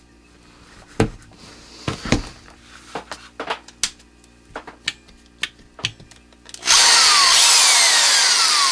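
A series of handling knocks and clicks, then about seven seconds in a corded electric drill's motor starts and runs steadily at full speed. The drill is powered through a portable GFCI, which is now passing power.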